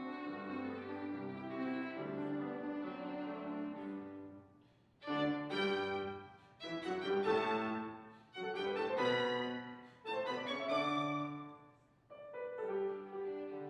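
Background classical music led by a bowed violin, with lower strings and piano beneath. About five seconds in it moves from smooth, held notes to louder swelling phrases, each broken off by a short pause.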